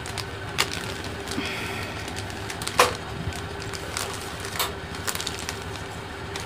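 Plastic bag holding new LED backlight strips crinkling and rustling as it is handled, with a few sharp clicks, the loudest nearly three seconds in, over a steady hum.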